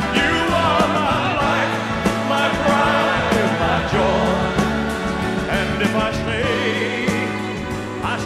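Music: a song with a melody line of strong vibrato over a steady accompaniment.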